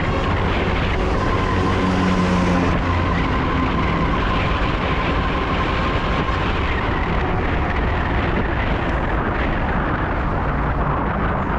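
Steady rush of traffic and road noise, with a faint steady whine through the first half.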